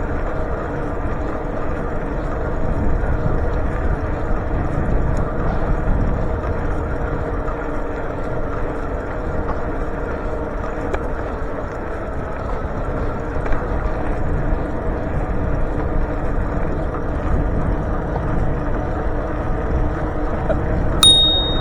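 Steady rumble of wind on the microphone and road noise during a bicycle ride, with a single short high ping near the end.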